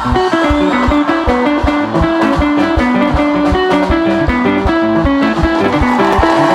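Upbeat music: quick plucked electric guitar notes over a steady, driving drum beat.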